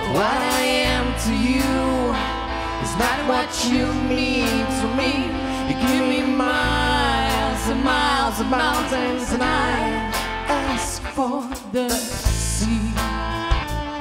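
Live band song: a woman sings the lead melody over acoustic guitar, with sustained low bass notes and drum hits beneath.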